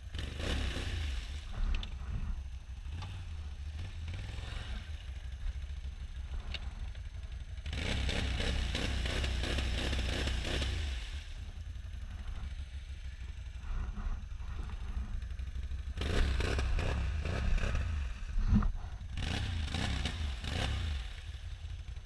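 Can-Am Renegade XXC 1000R ATV's V-twin engine running low and revving in several bursts as its wheels spin and churn through a mud puddle, the ATV bogged down and being worked free.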